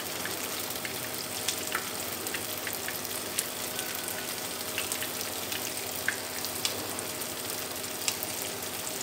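Tofu frying in hot oil in a pan: a steady sizzle with scattered small pops and crackles.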